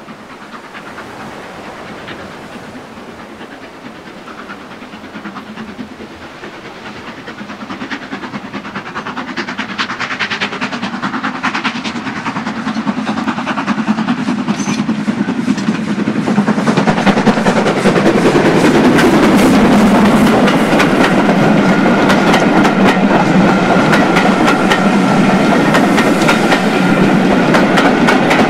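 Stanier 8F 2-8-0 steam locomotive No. 8274 approaching under steam, growing steadily louder as it nears and passes close by. Its coaches follow with a fast, steady clickety-clack of wheels over the rail joints.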